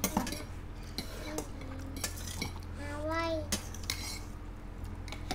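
Forks and spoons clinking and scraping against plates and a metal pan as people eat noodles, a scatter of short clicks. A brief vocal sound comes about three seconds in.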